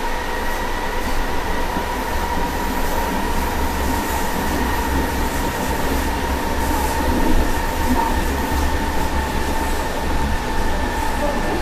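Berlin U-Bahn type G train, heard from inside a car standing at a platform with its doors open: a steady hum with a constant high whine over a low rumble.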